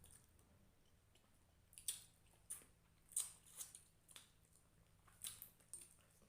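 Eating sounds from a meal of rice and fish curry: a run of short, wet mouth smacks and clicks, about seven of them, starting about two seconds in.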